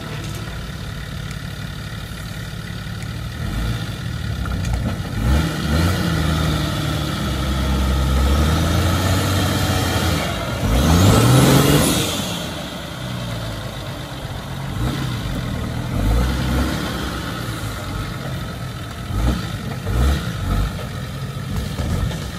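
Off-road 4x4 engine running and revving in repeated bursts, with one long, loud rev that rises and falls about halfway through.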